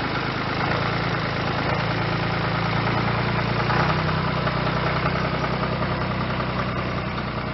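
Tractor engine running steadily at an even, low speed, its pitch shifting slightly about halfway through.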